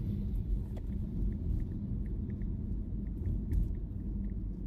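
Steady low rumble inside a car's cabin, the engine and road noise of a car on the move, with a few faint light ticks.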